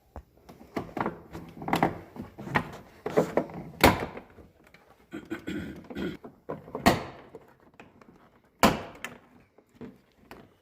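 Interior door trim panel of a 1999 GMC Sierra being pried off the door, its plastic retaining clips popping loose in a series of sharp pops and thunks against the door. The three loudest come about four, seven and nine seconds in.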